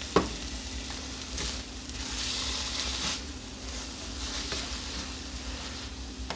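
Browned ground beef sizzling in a skillet, with chili-bean liquid just poured in, while it is stirred with a slotted spatula; the sizzle swells about two seconds in. A sharp knock sounds just after the start.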